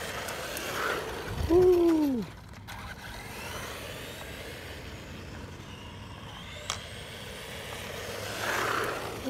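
Ingqu SL-119A 1/12-scale RC monster truck running across concrete, its small 390 brushed electric motor and drivetrain giving a steady noise that grows louder near the end as the truck comes closer. A man whoops "woo!" about two seconds in.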